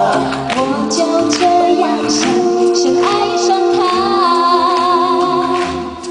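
A woman singing live into a handheld microphone over musical accompaniment, holding a long note with vibrato about three seconds in.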